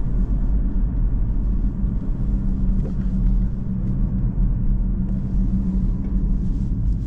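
Inside the cabin of a 2017 BMW 116d under way: its 1.5-litre three-cylinder diesel running with a steady drone over low road and tyre rumble.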